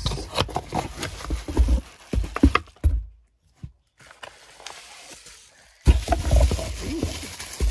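Cardboard packaging being handled: the box flaps rubbing and knocking for the first few seconds. After a short quiet gap, bubble wrap rustles and crinkles loudly from about six seconds in as the wrapped glass bottle is pulled out.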